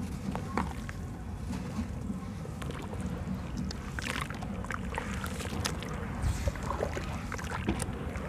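Hands crumbling and squeezing soft red dirt in a basin of water: wet squishing and sloshing of mud, with many small crackles that grow denser about halfway through, over a steady low rumble.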